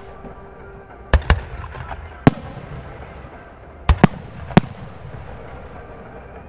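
Aerial firework shells bursting in the sky: six sharp bangs, two close together about a second in, one a second later, then three around four seconds in, each trailing off in an echoing rumble.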